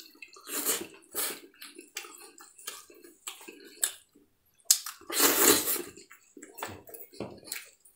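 Wet mouth noises of a man eating tail meat by hand: a string of short smacking, sucking sounds, with one longer and louder wet sucking sound about five seconds in.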